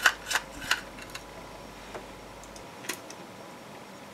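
Small sharp clicks as the screwed-down PCI Express Wi-Fi card is worked out of its slot on the circuit board. There are several quick ones in the first second, then two fainter clicks further on.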